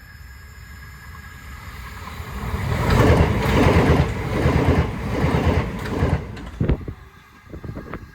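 A vehicle passing close by: a rumble that builds for about a second, stays loud for about three seconds, then fades, with a few sharp knocks near the end.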